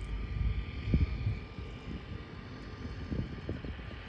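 Wind buffeting the microphone in uneven low gusts, the strongest about a second in and another near the end, over a faint steady distant engine hum.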